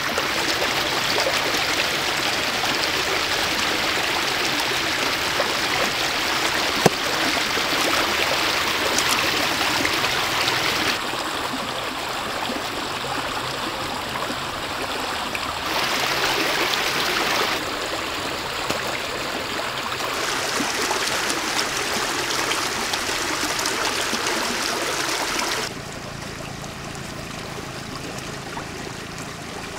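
Steady rushing, trickling water. Its loudness and tone shift abruptly several times, dropping noticeably near the end.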